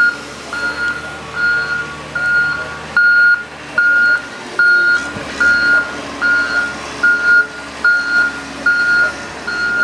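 A truck's reversing alarm beeping steadily, one high beep about every three-quarters of a second, over the truck's engine running.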